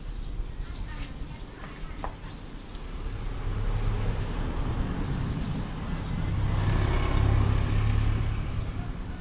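Low rumble of a passing motor vehicle, swelling twice and fading near the end.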